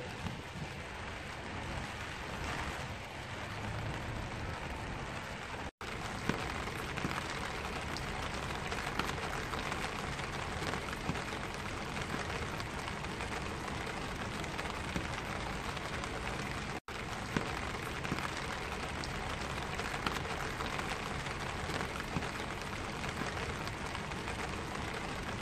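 Steady rain falling on a black vinyl umbrella, heard from beneath the canopy, with individual drops ticking on it. The sound cuts out for an instant twice, about a quarter and two-thirds of the way through.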